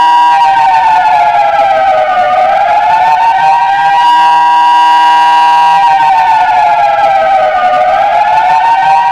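Civil defence warning siren sounding loud and steady, its pitch sagging and rising back twice, about five seconds apart.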